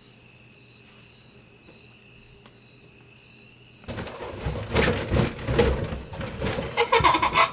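Quiet for about four seconds, with only a faint steady high tone; then balloons being batted about, rustling, rubbing and thudding against each other and the bedding. A child's brief voice comes in near the end.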